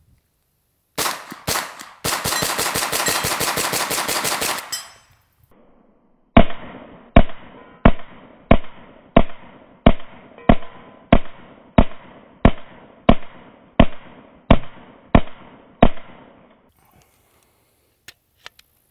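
Wilson Combat AR9-G 9mm carbine firing semi-automatic. Two shots come first, then a dense run of rapid cracks for about two and a half seconds. After a short gap come about fifteen evenly paced shots, roughly one and a half a second. The magazine runs through without a stoppage.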